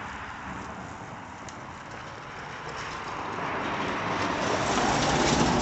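Passing road traffic: a steady rush of tyre and engine noise that grows louder over the second half.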